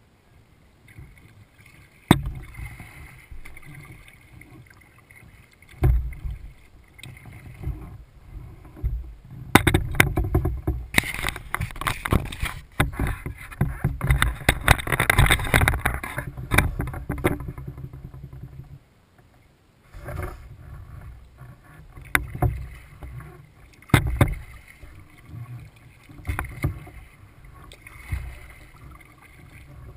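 Kayak being paddled: the paddle dips and splashes water, with scattered sharp knocks, heard from the camera on the bow deck. A denser, louder run of splashing fills the middle.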